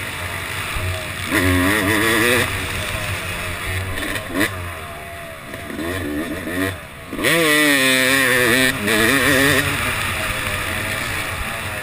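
Yamaha YZ250 single-cylinder two-stroke motocross engine revving hard and easing off over and over as the bike is ridden. About seven seconds in the throttle is chopped briefly, then the revs climb steeply again.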